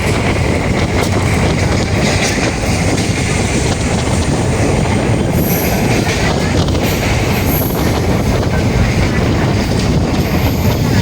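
Train running along the track: a loud, steady rumble and rush of noise, with brief high wheel squeals a few times.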